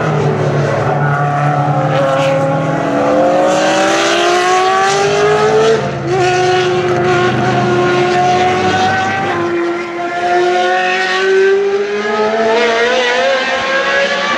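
Lola T280's Cosworth DFV V8 race engine passing and accelerating hard away through the gears. Its pitch climbs, drops at quick upshifts about six and about nine and a half seconds in, and climbs again after each.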